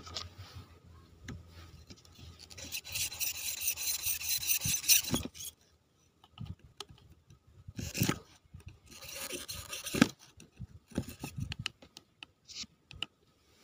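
Hand tool scraping and rasping against a small fired-clay pot being opened. A fast run of strokes lasts about two and a half seconds, two shorter runs follow in the middle, and a few light knocks come near the end.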